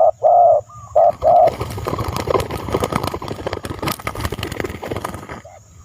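A dove cooing in a repeated run of short, loud notes that stops about a second and a half in, followed by a few seconds of rustling with scattered clicks that fades away.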